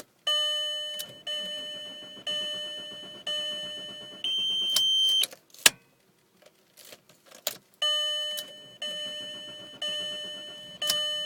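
Dashboard warning chime from a 2000 Volkswagen Jetta's instrument cluster: four chimes about a second apart, then a steady tone held for about a second. A sharp click follows, then the same chime pattern repeats. No engine is running.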